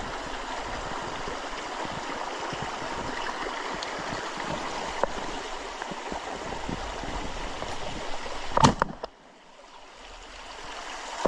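Mountain stream running steadily, with a single shotgun shot about three-quarters of the way through. Right after the shot the stream sound drops away, then slowly comes back.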